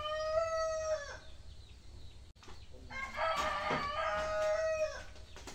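A rooster crowing twice. The first crow ends about a second in and the second comes about three seconds in; each is a long call held on one pitch that drops at the end.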